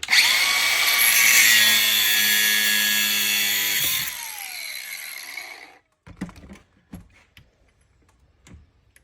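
Grinder cutting through a steel flexshaft cable at its silver-soldered joint. It runs at full speed for about four seconds, then is released and winds down with a falling whine, followed by a few light clicks of handling.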